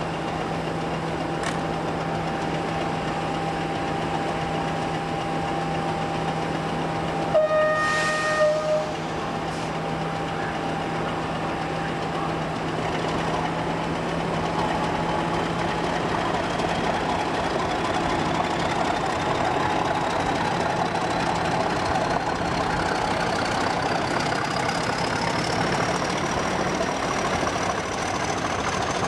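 Class 50 diesel locomotive 50043 Eagle, its English Electric 16-cylinder engine running steadily, with a short horn blast about seven seconds in. From about halfway a whine climbs steadily in pitch as the locomotive picks up speed.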